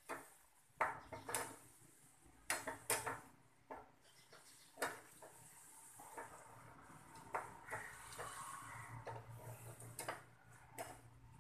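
A long-handled perforated metal skimmer clicking and scraping against the metal pot as it turns wheat-and-egg batter balls deep-frying in oil. Under the clicks the oil sizzles steadily, more strongly in the second half.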